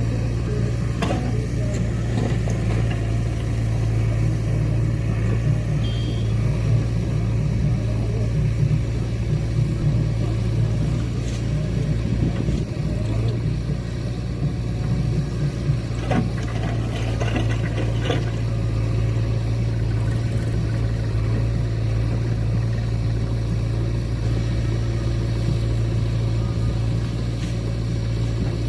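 Heavy diesel machinery engine running steadily at constant speed, with a few short clanks now and then.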